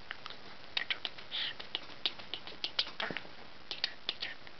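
A budgerigar making an irregular run of short, high clicks and brief chirps, a few each second.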